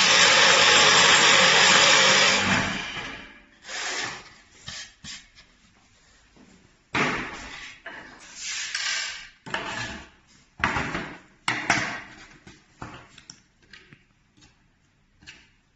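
Portable hinge boring machine's electric motor running loud and steady as it bores a hinge cup hole, then winding down about three seconds in. Irregular knocks and clatters follow.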